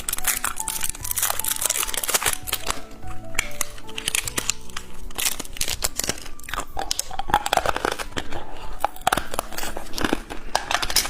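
Plastic candy packaging crinkling and crackling as it is handled, with many sharp crackles, over background music.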